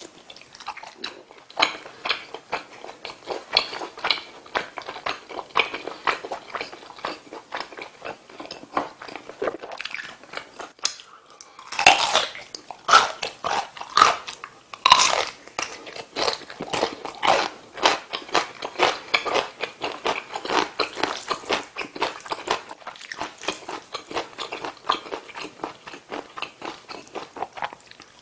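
Close-miked mouth chewing of soft spicy food, then from about twelve seconds in louder, crisp crunching bites of yellow pickled radish (danmuji).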